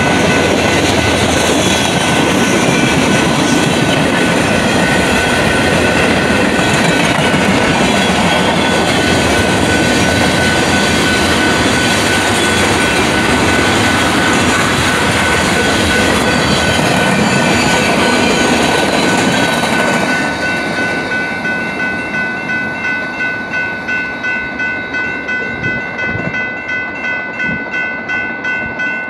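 Freight train cars rolling past a grade crossing, wheels rumbling and clattering on the rails, with the crossing bell dinging steadily. About two-thirds of the way in the last car clears and the rumble drops away suddenly, leaving the crossing bell ringing on its own about twice a second.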